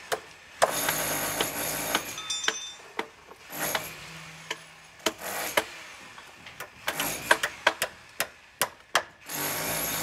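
A hand tool knocking and scraping on bricks: sharp separate knocks with rough scraping between them, coming in a quick run near the end.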